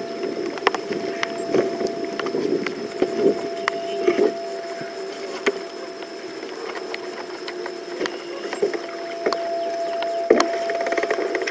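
Sounds aboard a small fishing boat: a steady hum runs throughout, with scattered light clicks and knocks and a louder knock near the end, as a catfish on a bent rod is brought to the landing net.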